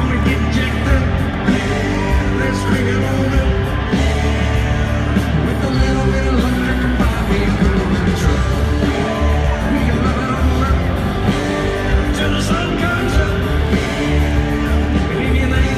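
Live country-rock band playing loudly with a man singing lead into a microphone, over a heavy low bass and drums.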